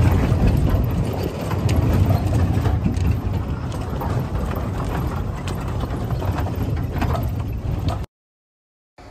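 Wind buffeting the microphone over the engine and road noise of an open-top vehicle driving over stony ground, with scattered rattles and knocks. The sound cuts off abruptly about eight seconds in.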